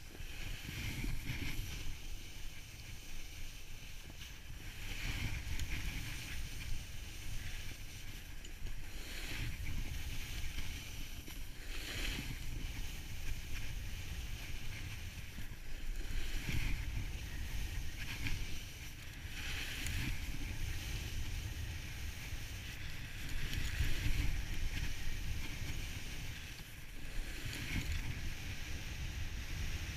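Snowboard sliding down a groomed slope, its edge scraping over the snow in a hissing swell every few seconds as the rider turns. Under it runs a low rumble of wind buffeting the GoPro's microphone.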